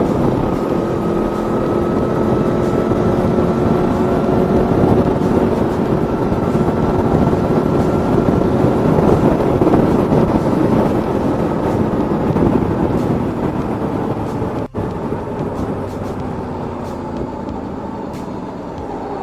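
Aprilia Tuono V4's V4 engine running steadily at road speed, over a broad rush of wind noise. The engine note eases slightly in pitch and level in the second half, and the sound cuts out for an instant about three-quarters of the way through.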